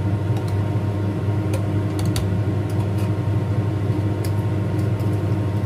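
Steady low hum of a kitchen appliance fan running beside a wok of simmering coconut-milk vegetable stew, with a few faint sharp ticks scattered through it.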